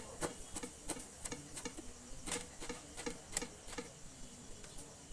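Knife chopping vegetables finely on a cutting board: light, irregular taps, about two or three a second.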